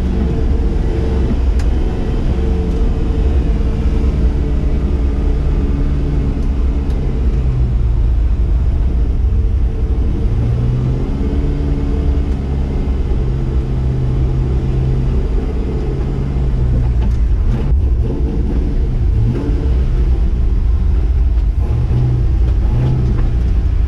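Lifted square-body Chevy truck with a swapped 6.0 LS V8 driving, with heavy low rumble and the engine pitch rising and falling as it pulls. The rebuilt driveshaft is running without trouble.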